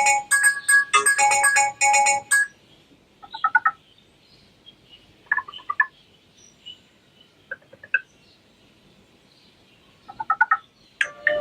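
Preset ringtones playing from the Sharp Aquos Pad SH-08E tablet's speaker. A fast, bright electronic melody stops about two and a half seconds in. Then come four short chirps a couple of seconds apart, and another melody starts near the end.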